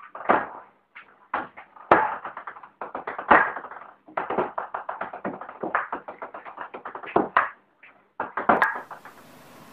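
A rapid, irregular series of light taps and knocks on a hard surface, with a few louder knocks among them, like a small object bouncing and clattering. The tapping stops near the end, leaving a faint hiss.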